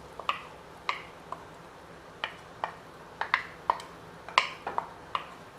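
A utensil clinking against a cooking pot, about a dozen sharp, irregular taps, as boiled banana stem pieces are spooned into the boiling tamarind gravy.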